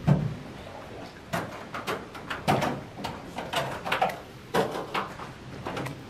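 A string of irregular knocks and clatters, about two a second, the loudest right at the start.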